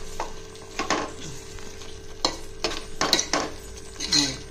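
A spoon stirring and scraping through mushroom gravy in a cooking pan, in a run of short separate scrapes and clinks, over a low sizzle.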